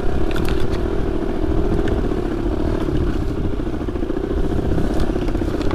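Dirt bike engine running at steady, low revs while riding a trail, with a few light knocks and rattles along the way.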